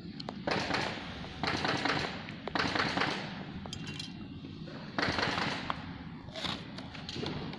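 Short bursts of rapid mechanical clatter, each about half a second long, repeating six times over a steady low hum.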